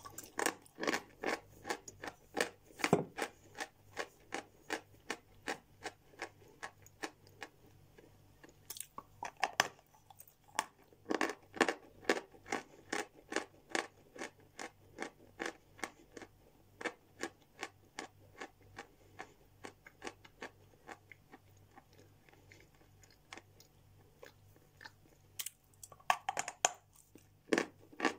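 A person biting and chewing a dry lump of white chalk, a steady run of crisp crunches about two to three a second. A few louder crunches come near the start, around the middle and near the end.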